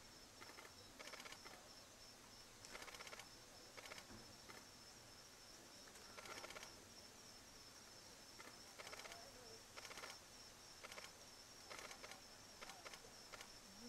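Faint, irregular crackling rustles, about a dozen short bursts, as an Oriental honey buzzard tears into a papery yellow-legged hornet nest and beats its wings while clinging to it. A faint steady high tone runs underneath.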